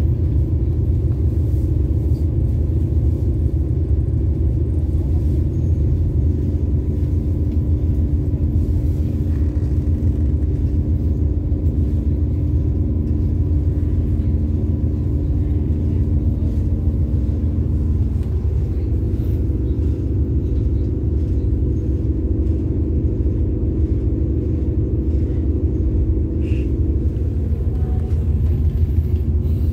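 Diesel-electric locomotive idling close by, a steady low rumble with a hum on top whose pitch shifts slightly about 18 seconds in.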